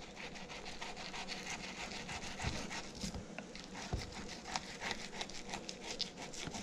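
Kitchen knife working back and forth under a redfin perch fillet to cut away the skin, the blade scraping along the skin and the wooden cutting board in a quick run of small rasping scrapes. The knife is not freshly sharpened, so the skinning goes slowly.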